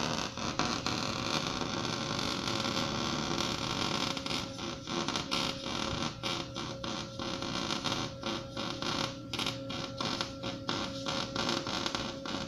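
Electric arc welding on a steel rear-suspension mount: a steady frying crackle of the arc, broken by many short stops and restarts in the second half as the weld is laid in stitches.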